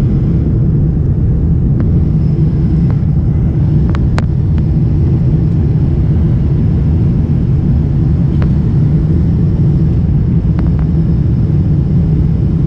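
Steady low roar of a four-engine Boeing 747 heard inside the passenger cabin during the climb after takeoff: engine and airflow noise. A faint high whine sits over it, and there is one sharp click about four seconds in.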